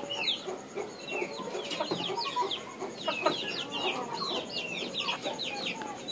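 Chickens peeping: a rapid run of short, high chirps, each falling in pitch, several a second.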